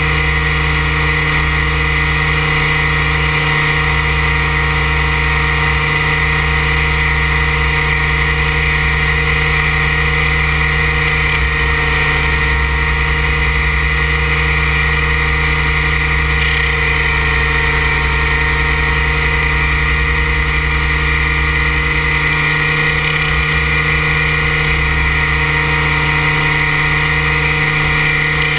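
Align T-Rex RC helicopter's motor and rotor head running at steady speed in flight, a loud, even, high whine heard from the camera mounted on the helicopter itself.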